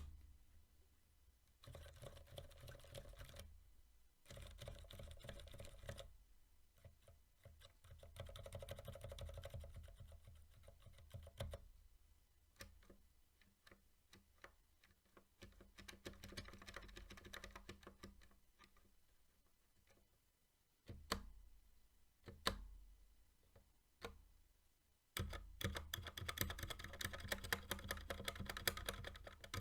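Typing on a keyboard with Cherry MX Silent Black switches and YMDK Dolch keycaps: quiet, dampened keystrokes in rapid runs broken by short pauses, louder near the end.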